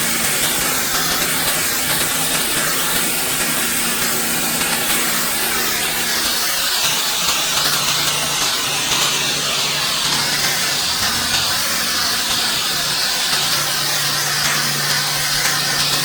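Pressure washer blasting water onto a concrete driveway: a loud, steady hiss of spray with a low, steady hum underneath.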